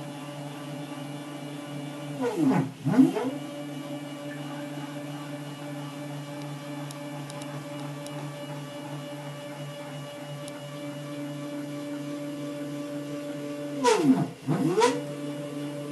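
Z-axis stepper motors driving ball screws, a steady whine while the axis travels. Twice, about two and a half seconds and fourteen seconds in, the pitch drops and climbs straight back up as the axis changes direction, the loudest moments.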